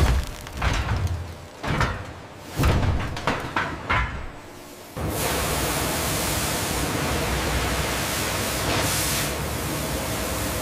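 Industrial press machinery working on a tire: a run of heavy clanks and thuds. About five seconds in it gives way abruptly to the steady hiss of high-pressure water jets spraying a tire in a wash tunnel.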